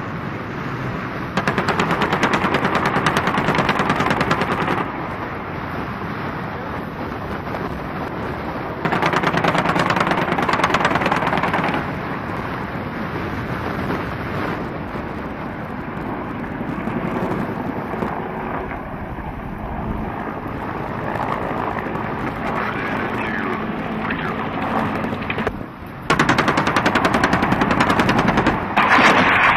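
Rapid automatic gunfire in long bursts. Three louder bursts of about three seconds each stand out above a lower, continuous noise, the last starting near the end.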